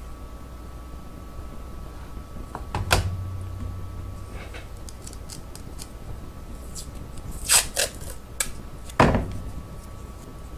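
Bench-work handling noises as cut power-supply wires and tape are handled: two sharp knocks, about three seconds in and near the end, and a few short scratchy bursts and clicks in between.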